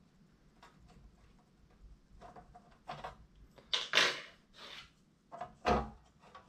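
Handling noise from taking the bottom panel off a Creality Ender 5 3D printer: a few light clicks, then a loud scrape about four seconds in and a knock near the end.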